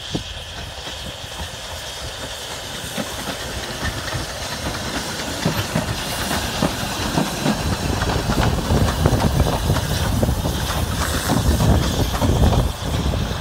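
Two narrow-gauge George England saddle-tank steam locomotives, Prince and Palmerston, bring a passenger train slowly in, with steam hissing and wheels clicking over the rail joints. The sound grows steadily louder as the engines come close and pass.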